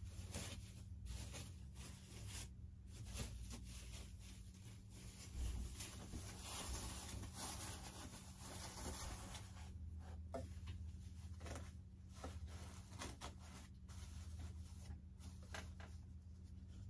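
Faint, irregular small clicks and scrapes of hand work: a screwdriver turning screws out of a foam RC jet airframe and the parts being handled, with a rustling stretch partway through.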